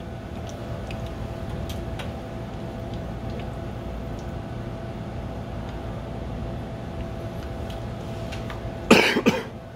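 Tempura batter strands frying in a pan of hot oil, with faint scattered crackles over a steady low hum. About nine seconds in, a loud cough.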